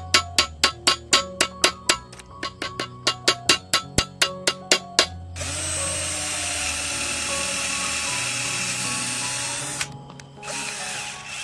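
Background music with a ticking beat of about four clicks a second, then an electric drill boring through a PVC pivot block, running steadily for about four and a half seconds before stopping abruptly. A second, shorter drill run follows near the end.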